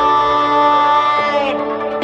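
Background music: a long held melody note that changes to other notes about a second and a quarter in.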